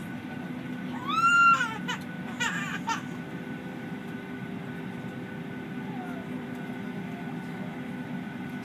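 A baby crying out twice inside an airliner cabin, a high wail whose pitch rises and falls about a second in and a shorter one at about two and a half seconds, over the steady hum of a Boeing 737-800 cabin during pushback.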